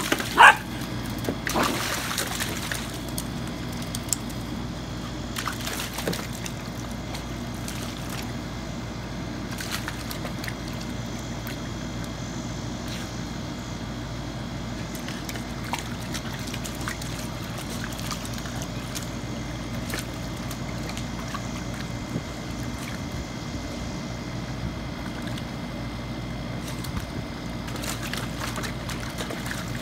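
Water sloshing and splashing in a plastic kiddie pool as an Australian Shepherd puppy paddles and plays in it, with water running in from a garden hose. A brief loud high-pitched sound comes right at the start, and a steady low hum runs underneath.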